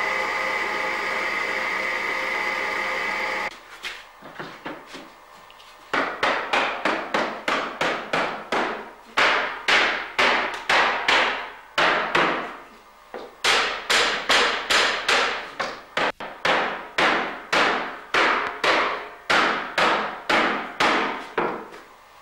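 A cooper's hammer striking down on a wooden herring barrel, in fast even runs of about three blows a second with short breaks, each blow ringing briefly: the hoops being driven tight on the barrel. At the start a workshop machine runs steadily and then cuts off suddenly.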